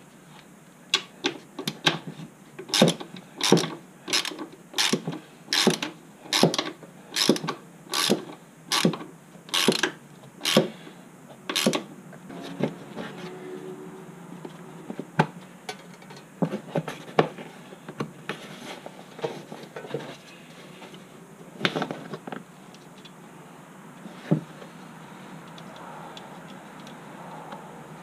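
Hand socket ratchet turning a bolt under the front of an ATV, with an even run of ratcheting strokes a little more than one a second for about ten seconds. Then the strokes stop and only scattered clicks and knocks follow.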